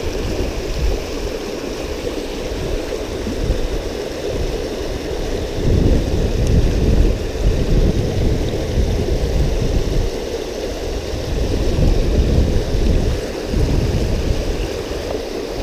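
Fast river water rushing through a narrow concrete channel below a weir: a steady, even rush with an irregular low rumble that swells and eases.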